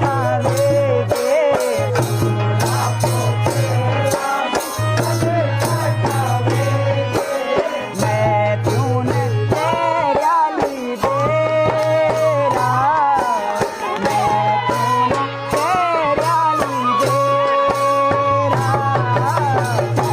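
Uttarakhandi Holi folk song: a male voice singing over hand-drum percussion, with a steady low drone that drops out briefly every few seconds.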